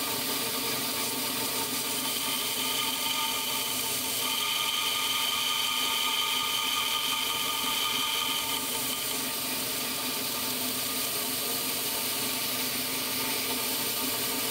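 Belt grinder running at slow belt speed with a narrow finishing belt, grinding the rubber lip of a stainless-backed way wiper pressed lightly against it. A steady whirring hiss, a little brighter for a few seconds in the middle.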